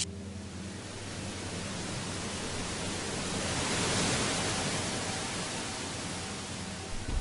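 A rushing hiss of noise, like static or wind, that cuts in abruptly, swells to a peak about halfway through and then eases off, over a low sustained drone.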